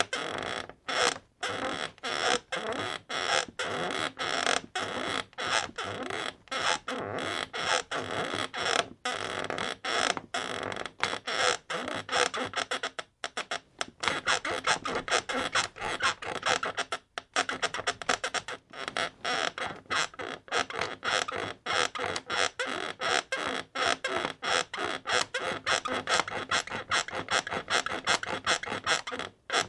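Bed creaking in a fast, regular rhythm, a squeaky creak about two to three times a second, broken by two short pauses partway through.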